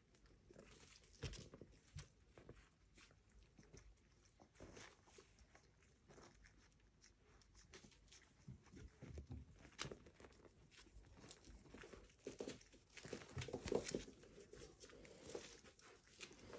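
Faint scuffling, rustling and small irregular clicks of miniature pinscher puppies moving and tussling on soft bedding, busiest toward the end.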